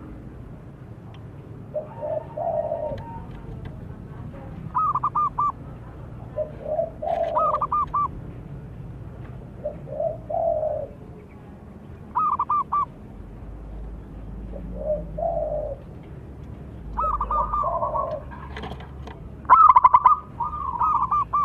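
Zebra doves cooing: short staccato trilling phrases repeated every couple of seconds, some higher-pitched and some lower, as if two birds answer each other, growing louder near the end.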